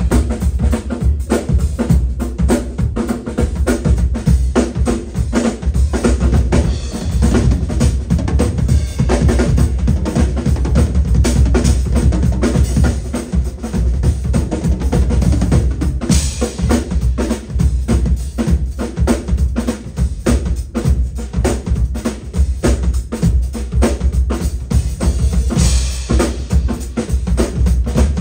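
Three drummers shedding together on acoustic drum kits, playing fast, busy chops: heavy kick drum, snare and rimshots, toms, and cymbal crashes about halfway through and again near the end.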